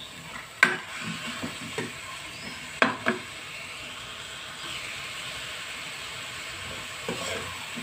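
Chicken pieces frying in spice paste in a nonstick wok, sizzling steadily. A metal ladle knocks against the pan twice, under a second in and again about three seconds in.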